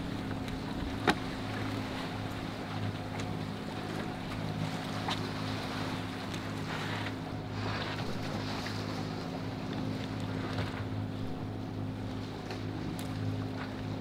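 A steady low mechanical hum aboard a sailboat under way, with wind and water noise, a sharp knock about a second in and a fainter click near five seconds.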